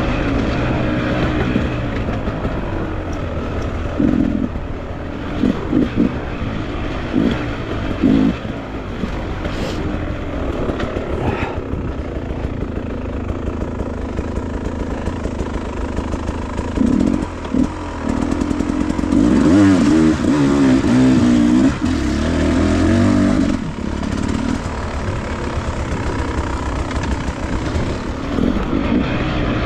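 Dirt bike engine running under way on a trail, its pitch rising and falling with the throttle. There are short throttle blips about 4 to 8 seconds in and a longer, louder stretch of revving about 19 to 23 seconds in.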